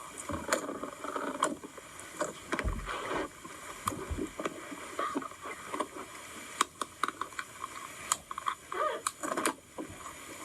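Hands squishing and kneading slime: irregular wet squelches with many small clicks and pops, and a couple of dull low thumps about three and four seconds in.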